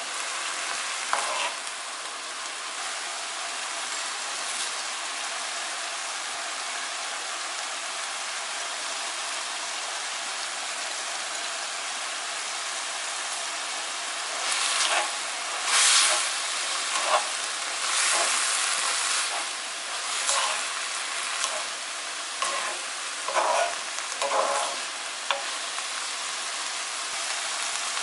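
Chopped green chillies and onion sizzling steadily in a hot frying pan as the last of the seasoning liquid cooks off. A wooden spatula stirs and scrapes through them in bursts, mostly in the second half.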